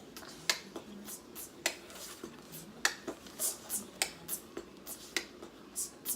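Irregular sharp clicks and taps, about a dozen spread unevenly, with a few short high hisses between them.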